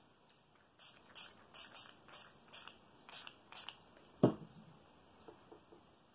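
Hand-held spray bottle spritzing water onto wet watercolour paper: about eight short hissing sprays in quick succession, then a single sharp knock about four seconds in.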